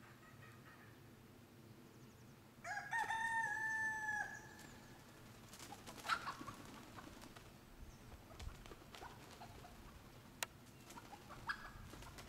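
A German bush chicken (Deutsches Buschhuhn) rooster crowing once, a single crow of just under two seconds starting about two and a half seconds in. A few short, fainter calls follow.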